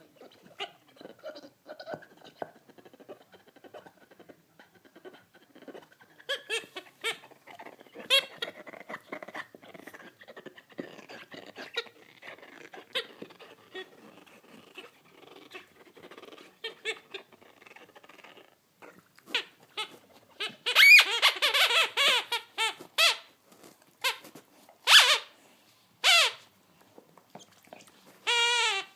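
A dog chewing a squeaky toy ball: soft gnawing with faint squeaks at first, then a fast run of loud squeaks about two-thirds of the way in and a few single squeaks near the end.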